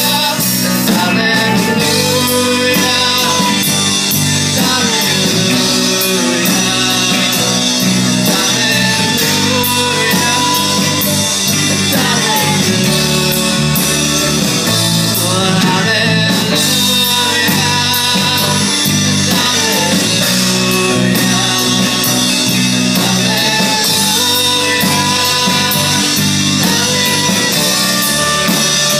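Live band music: electric guitar and drum kit under a held melody from a small wind instrument.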